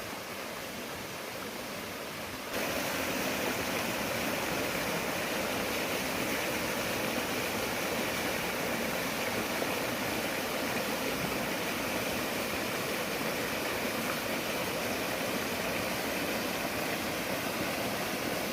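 Water rushing steadily over the rocks of a jungle stream and its small waterfall, a constant hiss that jumps louder about two and a half seconds in.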